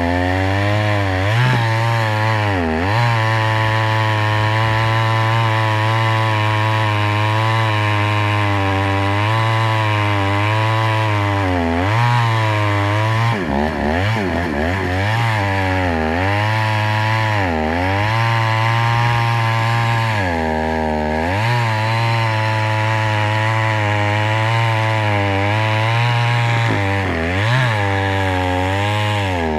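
Chainsaw running at high revs, its pitch sagging and recovering every few seconds as the chain is loaded, as in cutting through wood.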